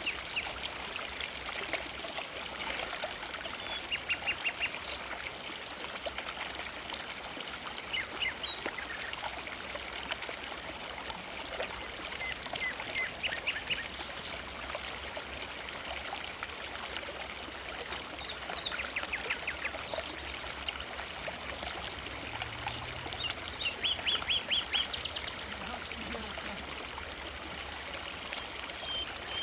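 A forest river running steadily, with birds calling in short, quick trills several times over the water.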